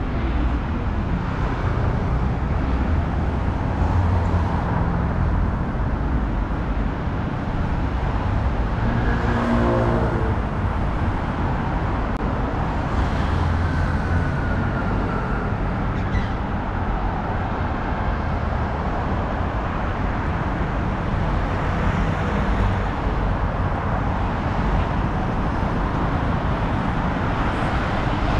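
Steady city road traffic: cars and buses running past on a busy street at an even level. There is a brief pitched engine or horn-like sound about nine to ten seconds in.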